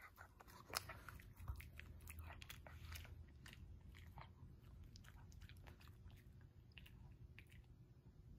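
Shih Tzu chewing a piece of dog treat: a faint, irregular run of small clicks from its mouth.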